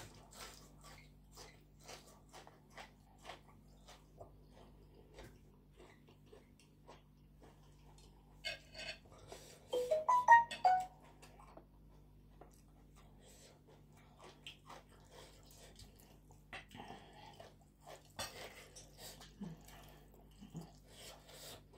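Close chewing and crunching of a crisp green vegetable, a sharp crunch about every half second, with a brief louder burst holding a few pitched voice-like notes about halfway through.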